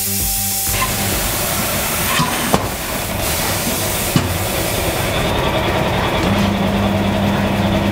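Tyre-shop noise: a steady hiss with two sharp knocks as a car wheel is rolled and set down on a tyre changer, then a machine's motor starts humming about six seconds in.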